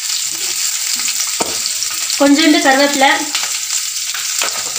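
Chopped onions and dried red chillies sizzling in hot oil in a kadai, a steady hiss with a few sharp clicks from the pan.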